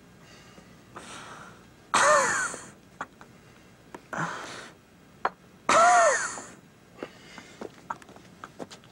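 A person's voice making two loud, strained vocal outbursts a few seconds apart, each rising then falling in pitch, each preceded by a breathy gasp-like sound. A few sharp clicks fall between them.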